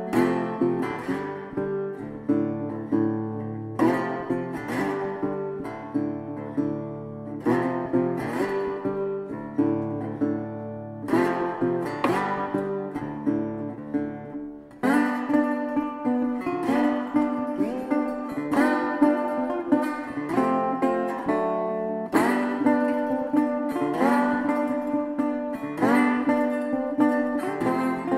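Background music: acoustic guitar playing a steady strummed and picked pattern, dipping briefly about halfway through before a fuller section begins.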